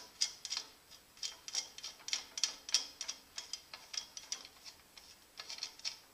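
Irregular light metallic clicking and ratcheting, two or three clicks a second, as a work-lamp fixture is turned and threaded onto its mounting bolt on the bandsaw's frame.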